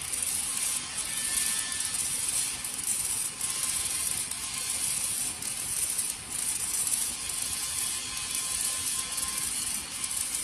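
MIG (gas metal arc) welding arc crackling steadily as the wire feeds into the weld pool.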